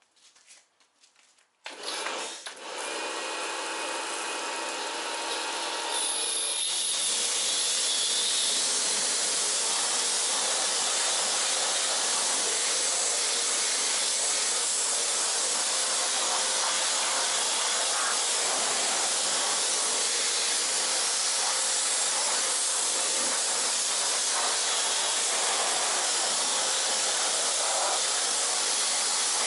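Kärcher K2 Compact electric pressure washer: its motor starts up about two seconds in, and from about six seconds the water jet is spraying against a car's alloy wheel with a steady, loud hiss.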